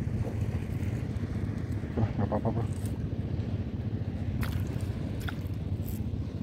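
Steady low rumble of wind buffeting the microphone, with a short voice-like sound about two seconds in and a few faint clicks in the second half.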